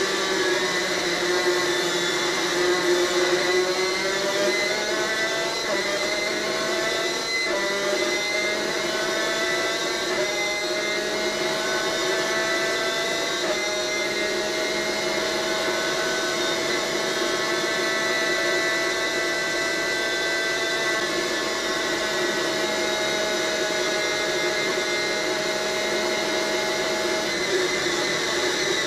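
Superkart's two-stroke racing engine at high revs, heard from onboard. Its pitch rises over the first several seconds, holds steady through the middle, then falls over the last few seconds as it slows.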